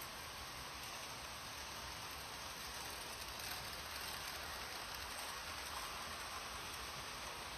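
Märklin model trains running on pressed-steel M-track: a steady rolling hiss, slightly louder in the middle.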